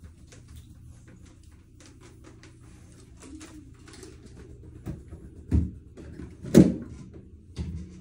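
Light knocks and clicks of things being handled in a small room, over a steady low hum, with two louder thumps, the loudest about six and a half seconds in.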